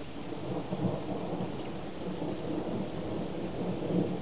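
Thunder rumbling, building about half a second in and rolling on in uneven swells over a steady hiss.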